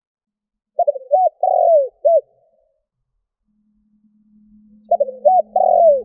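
Spotted dove cooing: two phrases of several short notes, the first about a second in and the second starting near the end. A faint steady low hum comes in partway through.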